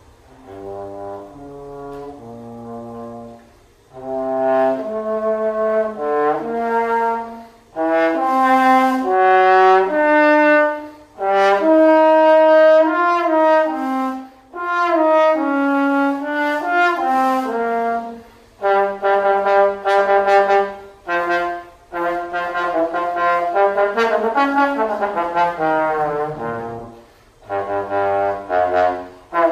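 Unaccompanied trombone solo: a soft, low opening phrase, then louder melodic phrases separated by short pauses for breath, with a long downward slide glissando near the end.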